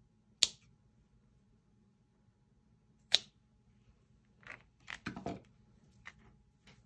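Small scissors snipping through the loose ends of a braided cord bracelet, two sharp snips about half a second in and again about three seconds in. Then a brief rustle of hands and cut cord ends on a plastic tarp near five seconds in.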